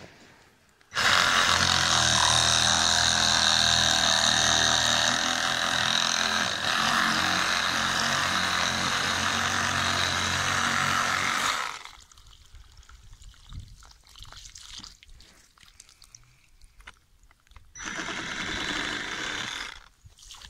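Milwaukee Hackzall battery-powered reciprocating saw cutting through 1.5-inch PVC pipe, running steadily for about ten seconds and then stopping, then running again for about two seconds near the end.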